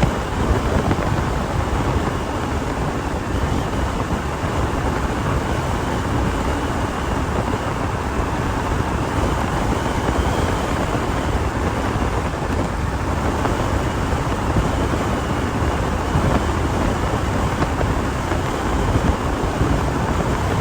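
Wind buffeting the microphone on an electric bike ridden at speed: a steady rushing rumble, with a faint steady high whine running through it.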